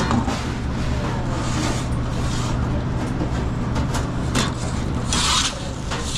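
Busy pizzeria kitchen: a steady low hum of kitchen machinery under scattered clicks and clatter of work, with a loud half-second burst of noise about five seconds in.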